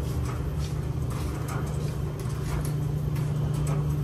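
Coin-operated laundromat clothes dryer running: a steady hum with faint, irregular ticks from the load tumbling in the drum.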